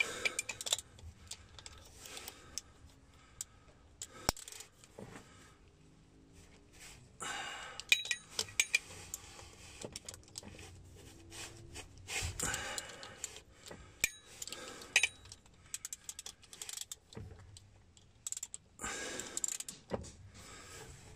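Hand ratchet and socket on the driveshaft flange bolts of a 2006 Ford F350: repeated bursts of ratchet clicking with scattered metallic clinks of the socket and bolts.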